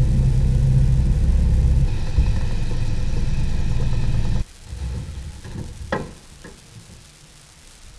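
An engine running steadily, loud and low. About four and a half seconds in it cuts off abruptly, leaving a quieter stretch with a few light knocks.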